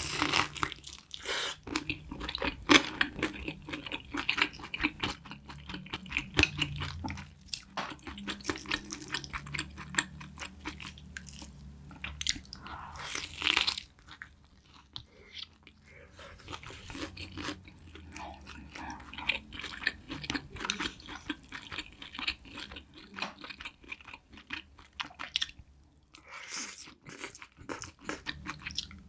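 Close-miked crunching and chewing of a crisp fried pork cutlet (donkatsu), the breading crackling with each bite. The crunching pauses briefly about halfway, then resumes.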